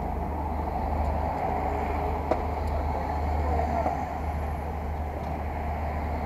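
Steady low engine rumble, with one sharp click a little over two seconds in.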